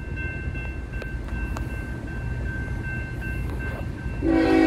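Railroad crossing bell ringing over a low rumble. Near the end the lead locomotive of a CSX freight, GE ES44AH 3220, sounds its air horn, a loud multi-note chord that holds on.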